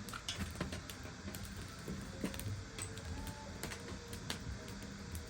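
Wood fire crackling: irregular sharp pops and snaps from burning firewood.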